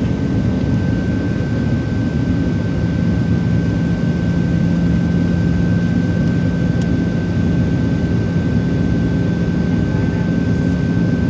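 Steady cabin drone inside a Boeing 737-700 descending with flaps extended: the noise of its CFM56-7 turbofans and the rushing airflow, with a constant low hum and a thin high whine over it.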